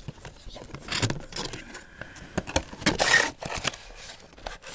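Cardboard model box being handled and opened by hand: irregular cardboard scrapes and rustles, loudest about three seconds in.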